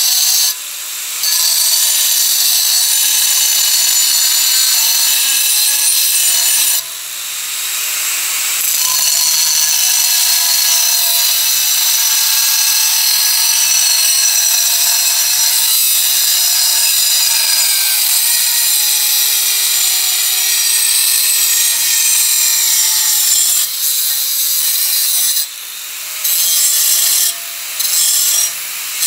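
Angle grinder with a cut-off wheel cutting through a steel saw blade clamped in a vise: a loud, steady high screech of the wheel in the metal over the motor's whine. The noise drops for a moment about a second in, around seven seconds in, and a few times near the end, as the wheel comes off the cut.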